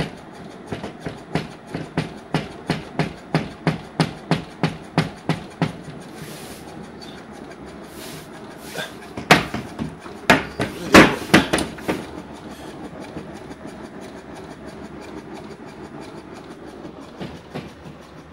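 Hinged chipboard panel holding a rotary subwoofer, shaken by a 3 Hz sine wave, knocking against its frame about three times a second; the subwoofer's own 3 Hz tone is too low to be heard. The even knocking stops after about six seconds, and a few louder, irregular bangs follow around ten to twelve seconds in.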